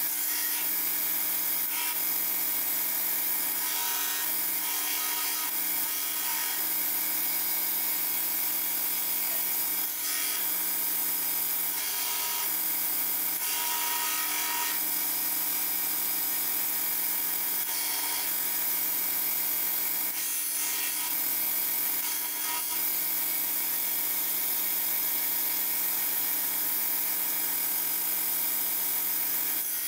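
Belt grinder running with a 40-grit belt, grinding the surface of a forged steel knife blank: a steady motor whine under a hissing, rasping grind that swells in short surges every few seconds as the blade is pressed on and moved across the belt.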